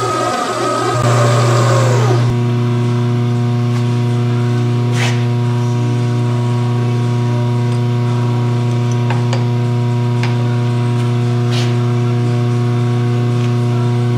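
A milling machine's electric motor runs with a drill bit turning in the spindle, drilling a steel part. For the first two seconds a rougher cutting noise with a falling tone is heard. Then the machine settles into a steady, even hum, with a few light clicks.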